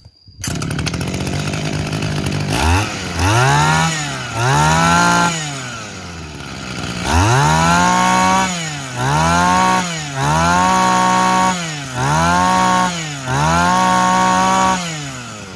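A Tanaka 25cc two-stroke brush-cutter engine with a 34 mm bore, run bare without its shaft. It starts about half a second in, idles, and is revved up and let fall back seven times. This is a test run of a used engine.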